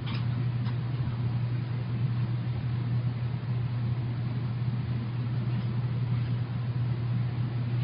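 Steady low hum with an even hiss, constant in level, with a few faint clicks.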